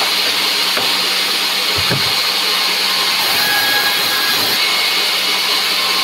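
Large sawmill band saw running steadily: a constant low hum under a loud, even, high hiss.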